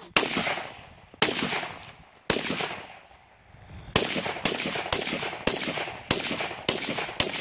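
Rifle fired repeatedly: three shots about a second apart, then after a short pause a quicker run of shots, about two a second. Each shot has a sharp crack that fades over a fraction of a second.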